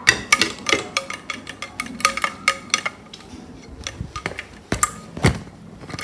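Irregular clicks, taps and knocks from a plastic Woody doll being handled and shaken close to the microphone, densest in the first three seconds, with a heavier knock about five seconds in.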